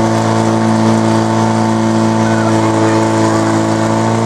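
Portable fire pump engine running flat out with a loud, steady drone, pumping water through the attack hoses to the nozzles.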